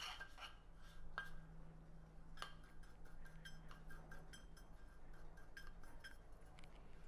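Faint clinks and light taps of small metal dariole moulds being handled and set down in a stainless-steel roasting pan: two sharper clinks about one and two and a half seconds in, then lighter ticks.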